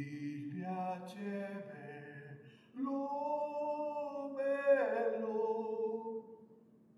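A lone voice singing unaccompanied in two long held phrases, the first about two and a half seconds and the second about three and a half, each sliding in pitch. A faint steady hum lies beneath.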